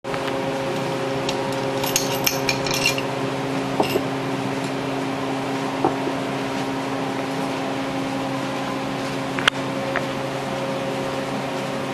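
Light metallic clinks and taps from handling a racing piston and connecting rod clamped in a bench vise, a quick cluster about two seconds in and a sharp click near the end, over a steady background hum.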